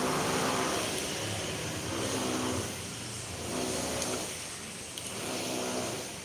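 Engine noise of passing road traffic, swelling and fading in several waves, with a couple of faint snips of scissors cutting herbs.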